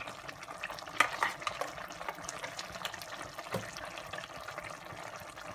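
A wooden spoon stirring thick tomato gravy in a steel pan, with the soft sizzle of the simmering gravy and a few light knocks of the spoon against the pan, about a second in and again midway.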